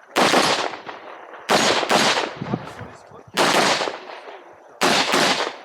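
About six shots from a semi-automatic competition rifle fitted with a muzzle brake, fired on a stage right after the start signal. Several come in quick pairs, with short gaps between the pairs, and each shot has a long echoing tail.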